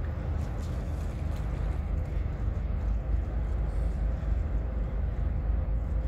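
Engines of the Blue Star Myconos car ferry running as it manoeuvres in harbour: a steady low drone with a faint constant hum above it.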